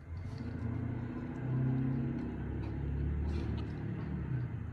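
Low, steady mechanical rumble of a running motor with a hum in it, coming up at the start and holding level.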